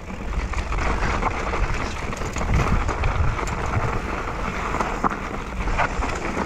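Wind buffeting the microphone over a steady rumble of knobbly mountain-bike tyres rolling down a trail of loose shale and stones, with scattered rattles and clicks from the bike.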